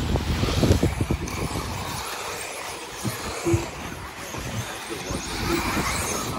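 Electric 1/10-scale 2WD stock RC buggies racing on artificial turf: a steady motor whine and tyre rush, with scattered knocks of the cars landing. Wind buffets the microphone in the first second or so.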